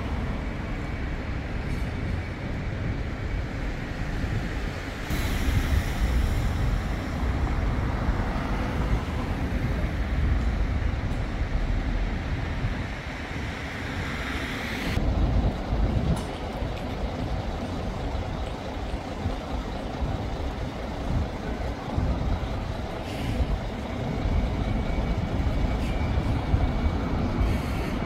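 City traffic noise: a steady low rumble of passing vehicles, with a louder stretch from about five seconds in that cuts off suddenly about fifteen seconds in.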